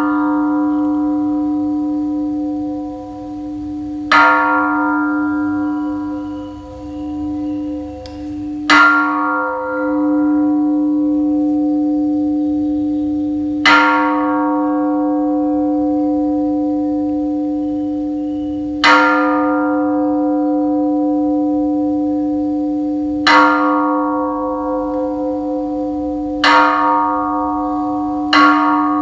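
A bell struck at intervals of about four to five seconds. Each stroke rings on with a long sustained tone until the next, and the strokes come quicker near the end.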